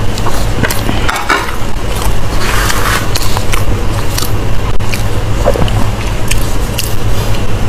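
Close-miked chewing and biting of pork intestine and sausage: irregular wet clicks and crunches from the mouth, over a steady low hum.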